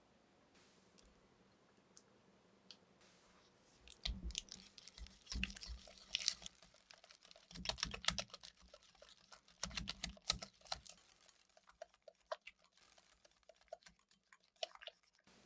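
Wire whisk beating soft room-temperature butter in a glass bowl: quick, irregular clicks of the wires against the glass, mixed with dull knocks. It starts about four seconds in and thins out near the end.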